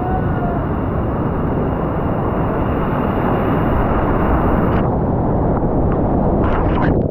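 Loud, steady rush of a whitewater rapid close around a kayak, water splashing at the boat. About five seconds in the sound turns duller as the bow drops into the foam, with a few splashing hits near the end.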